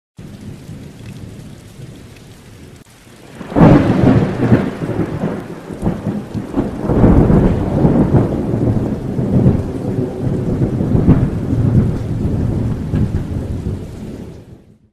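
Thunderstorm: rain falling steadily, then a sudden loud thunderclap about three and a half seconds in. Rolling thunder rumbles on in repeated swells and fades out near the end.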